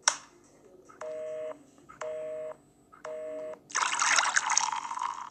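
Push-button telephone: a click, then three touch-tone dialing beeps about a second apart, each lasting half a second. Then, near the end, a rush of beer pouring and splashing.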